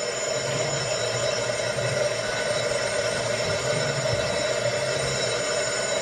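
An electric bell ringing continuously with an even, metallic ring.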